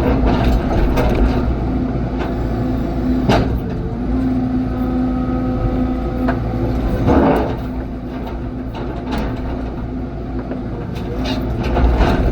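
Heavy equipment engine running steadily under load while the machine's steel bucket works a rock. There is a sharp knock about three seconds in, a scraping crunch of rock on steel about seven seconds in, and several more knocks near the end.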